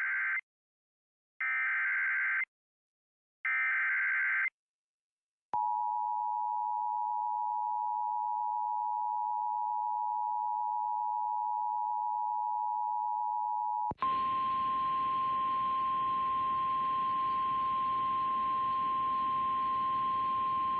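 Emergency Alert System activation for a severe thunderstorm warning: three short buzzy SAME header data bursts, then the steady two-tone EAS attention signal for about eight seconds. About fourteen seconds in, it switches to the single steady NOAA Weather Radio warning alarm tone over radio static.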